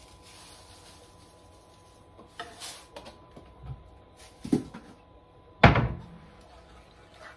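Kitchen wall cupboard being opened and a box put back inside, with a few light knocks and rustles, then one loud thump of the cupboard door shutting about three-quarters of the way in.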